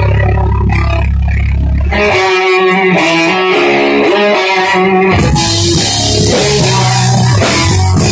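Live rock band playing loud, distorted music. About two seconds in, the heavy bass and drums drop out and a guitar line carries on alone. About five seconds in, the full band comes back in with cymbals.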